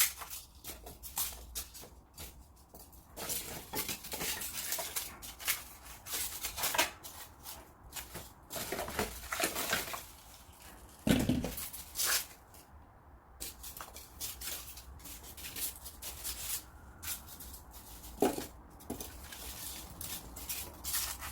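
Tree roots and work materials being handled and set in place: irregular knocks, scrapes and rustles. There is a heavier thump about halfway through and another near the end.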